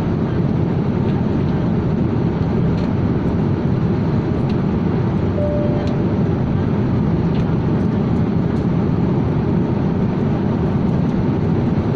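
Steady rush of an airliner's cabin noise in flight, engine and airflow noise that stays even throughout. A brief soft tone sounds about halfway through.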